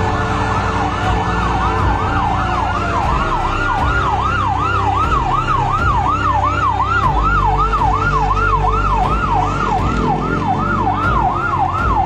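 Emergency vehicle siren sounding a fast yelp, its pitch sweeping up and down about three times a second. In the first couple of seconds a second siren overlaps it. A steady low rumble runs underneath.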